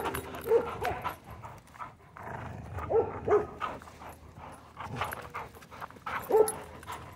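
Dogs barking in short, sharp barks: a few at the start, a pair about three seconds in, and one more near the end.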